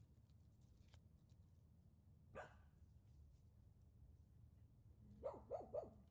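A dog barking: one bark about two and a half seconds in, then three quick barks near the end.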